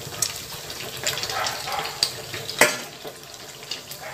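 Hot oil sizzling and bubbling in a steel kadai around a puffed rice-flour neypathal being deep-fried and turned over. A single sharp clack about two and a half seconds in, the perforated skimmer against the pan.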